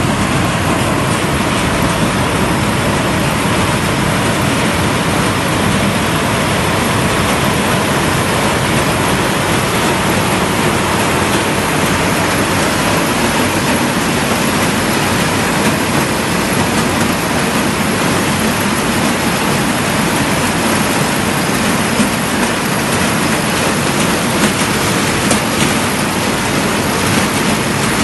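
4YZ-4T self-propelled corn harvester running, a loud, steady mix of engine and machinery noise with a faint steady tone.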